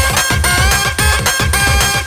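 Loud electronic dance music: a Palembang-style DJ house remix with a steady heavy bass beat under a synth melody.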